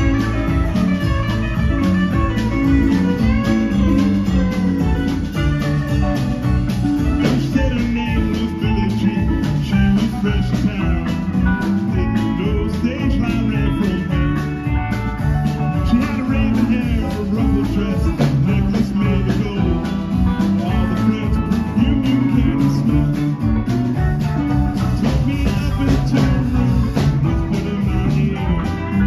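Live band playing: electric guitars over bass, drums and keyboard, with a steady drum beat throughout.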